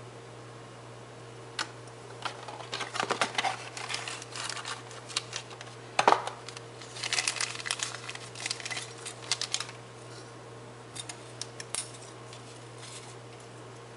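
Clear plastic packaging crinkling and rustling in the hands, with scattered light clicks of plastic being handled and one sharp knock about six seconds in.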